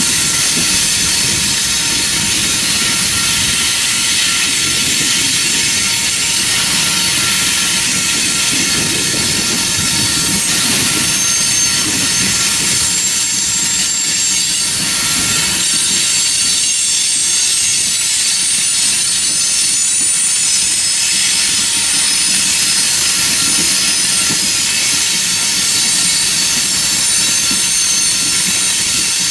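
Coal hopper cars of a freight train rolling steadily past: wheels rumbling and clattering over the rails, with a steady high-pitched wheel squeal above them.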